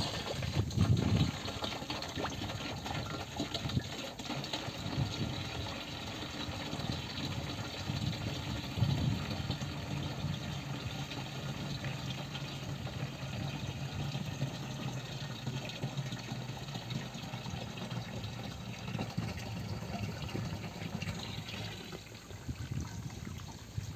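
A steady stream of water gushing from a hose into the neck of a plastic jerry can, filling it. A 24 V DC water pump drives the flow.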